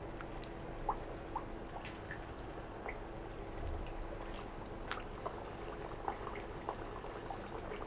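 Semolina-and-jaggery pitha discs deep-frying in a pan of hot oil: a faint steady sizzle with scattered small pops and crackles, over a faint steady hum.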